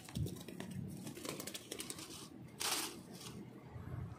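Faint rustling and handling noise as hands work a fish stringer line and the caught fish, with one short, louder rustle a little past the middle.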